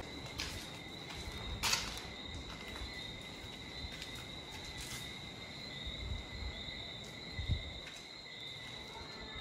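An insect's steady, unbroken high-pitched trill, with a few sharp clicks and a soft thump mixed in.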